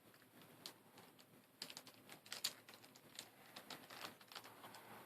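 Faint, irregular light clicks and taps of small plastic V-Cube 7 puzzle pieces being handled and fitted into the partly rebuilt cube.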